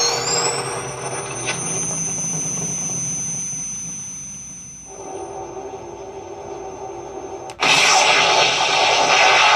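Proton pack sound effects from an upgraded Frankengeek sound board played through a larger speaker: a power-up whine rising in pitch and settling into a steady high whine, joined by a lower pulsing hum about five seconds in. About two seconds before the end a loud rushing noise effect cuts in suddenly.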